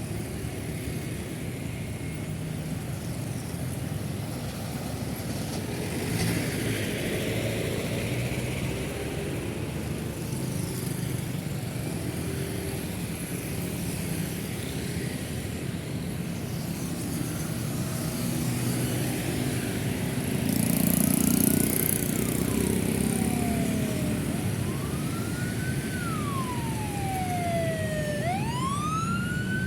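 Steady busy city road traffic, cars, buses and motorcycles passing. In the last several seconds an emergency vehicle siren wails, rising and falling in pitch and growing louder.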